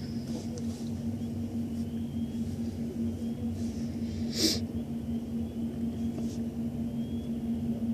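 Steady low mechanical hum with a rumble beneath it, and one sharp click about halfway through.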